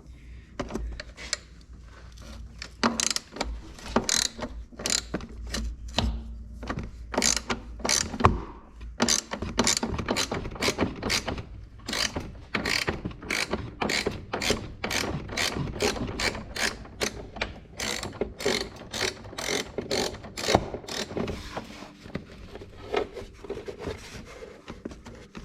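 Ratchet wrench clicking as a bolt is worked loose, in short repeated strokes that settle into a steady rhythm of about two clicks a second.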